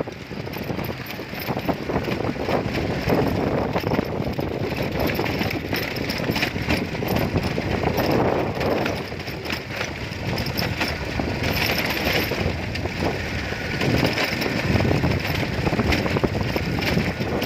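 Wind buffeting the microphone during a bike ride: a steady rumbling rush with crackles, swelling in gusts, mixed with the noise of the moving bike.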